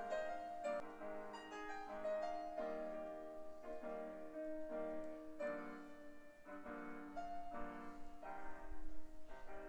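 Background piano music, notes struck one after another in a gentle melody.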